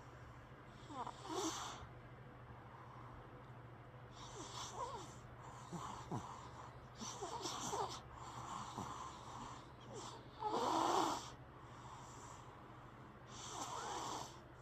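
Snoring: about seven irregular, wheezy snoring breaths with an airy hiss, the loudest about ten to eleven seconds in.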